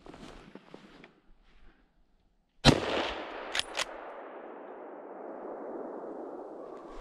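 A single hunting rifle shot about two and a half seconds in, its report echoing and rolling away for several seconds. Two quick sharp clicks follow about a second after the shot.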